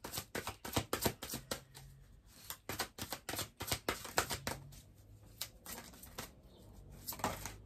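A deck of large oracle cards shuffled by hand, the cards slapping and sliding against each other in quick, irregular clicks that thin out for a moment in the second half.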